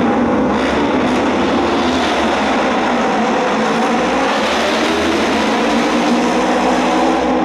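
A field of Japanese auto race bikes, their 600cc twin-cylinder engines running together in one loud roar as the pack launches from the start and races around the oval. The sound grows brighter and fuller a little past halfway in, as the pack passes nearer.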